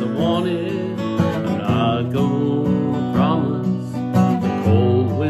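Acoustic guitar strummed in a slow ballad, with a man's voice singing over it.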